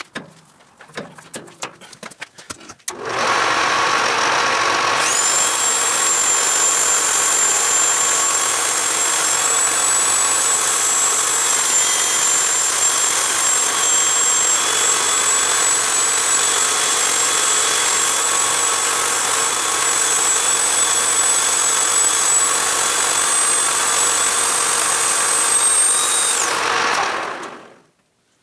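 A lathe runs while a Dremel 3000 rotary tool, mounted as a tool post grinder, grinds the spinning metal workpiece with its abrasive wheel. A few clicks and knocks come first, then a loud steady grinding noise. About two seconds later a high motor whine joins it, and everything winds down and stops shortly before the end.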